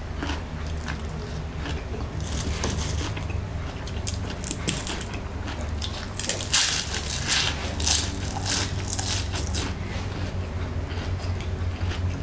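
Crunching bites of fried lumpia shanghai (Filipino spring rolls) being eaten, with chewing. Clusters of crisp crunches come about two seconds in and again from about six and a half to nine and a half seconds.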